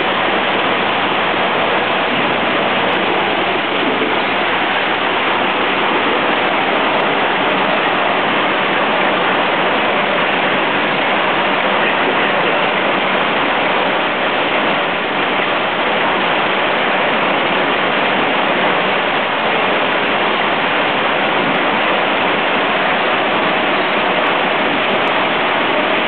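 Eight-head automatic rotary capping machine running at speed, applying flip-top caps to chewing gum packs: a steady, dense, even machine noise with no pauses or changes.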